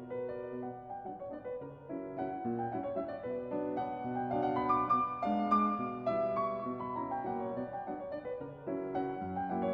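Piano music: a string of ringing piano notes over lower chords.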